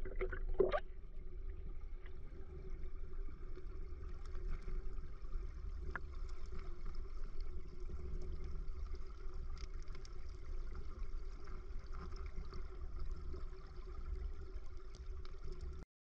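Mountain creek water heard muffled: a steady low rumble with gurgling, and a short knock about half a second in.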